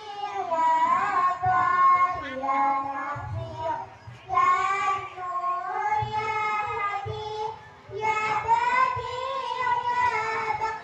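A child singing a melody in long, held phrases, with short breaks about four and about eight seconds in, and soft low thumps underneath.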